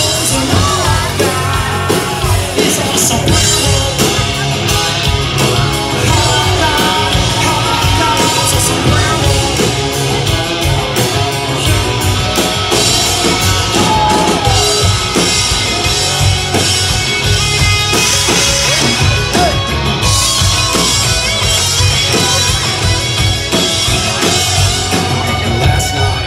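Live rock band playing a song at full volume: electric guitars, bass and drum kit, with a steady beat and melodic guitar lines.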